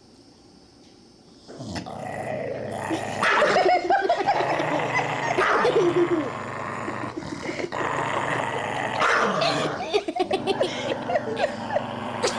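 A dog growling and barking in a long, busy run of calls, starting about a second and a half in after a quiet start.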